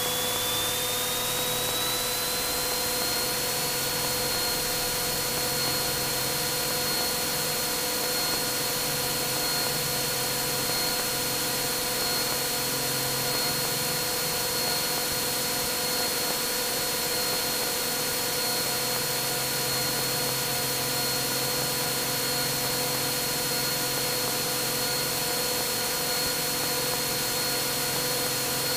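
Cessna 182's Continental IO-550 engine and propeller at takeoff power, heard as a steady drone inside the cockpit. A whine rises in pitch over the first few seconds, then holds steady through the takeoff roll and liftoff.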